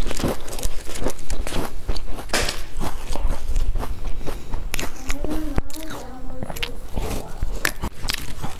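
Close-miked crunching and chewing of large sesame-topped crisp cookies, many sharp crunches in a row, with a short hummed voice sound from the eater about five seconds in.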